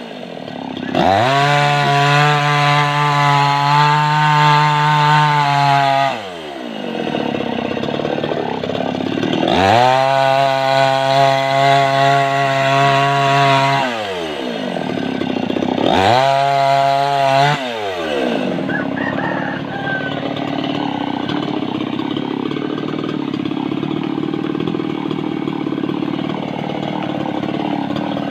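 Mini chainsaw run up to full speed three times, each time for a few seconds: the pitch climbs as it speeds up, holds steady while cutting mango wood, then drops away as it slows. For the last ten seconds a lower, steadier running sound continues.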